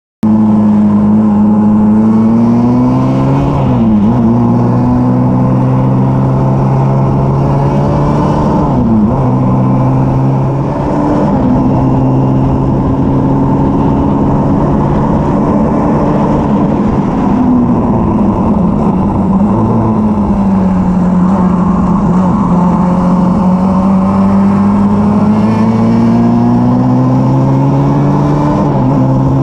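Formula Junior single-seater race car's engine heard from the cockpit at speed, with wind rush over the microphone. The engine note dips sharply twice in the first ten seconds, sags in the middle and climbs steadily again near the end.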